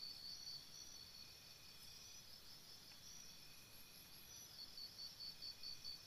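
Faint chorus of insects chirping: one high pulsed chirp repeats about four times a second, fades out early and comes back near the end, over softer steady trills at other pitches.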